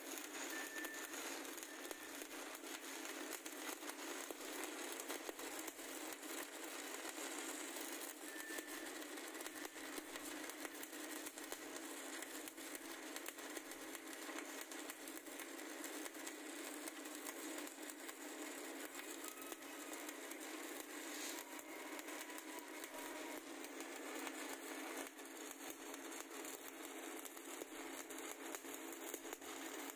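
Stick (SMAW) welding arc burning along the joint of a 10-inch pipe flange, crackling steadily and without a break.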